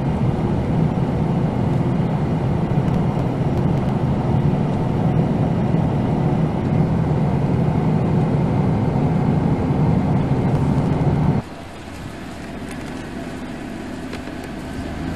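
Steady rumble of a car's engine and road noise heard inside the moving vehicle. About eleven seconds in it cuts off abruptly to a quieter, steady background rumble.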